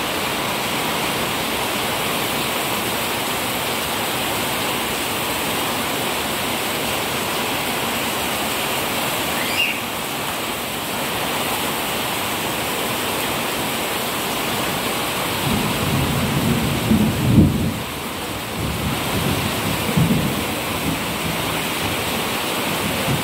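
Heavy rain falling steadily, with a low roll of thunder rumbling for several seconds about two-thirds of the way through.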